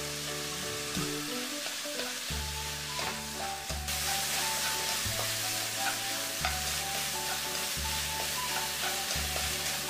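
Beef strips and oyster mushrooms sizzling in a frying pan as they are stirred and tossed; the sizzle gets louder about four seconds in. Soft background music with a stepping bass line plays underneath.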